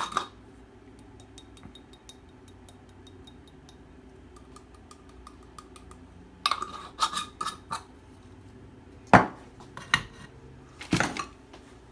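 Kitchenware clatter while spices are added to a bowl of chickpeas: faint fine ticking, then a cluster of clinks past the middle and three louder sharp knocks of a container or utensil set down near the end.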